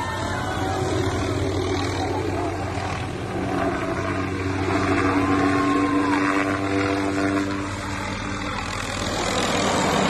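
Small helicopter flying low overhead, a steady buzzing drone of rotor and engine, with a few rising-and-falling voice calls over it.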